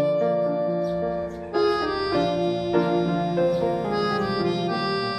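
Background music: a keyboard melody of held notes changing one after another.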